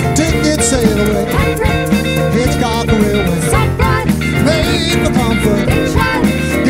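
A rock band playing with a steady beat of drums and bass under keys, and a melody line that slides up and down in pitch over them.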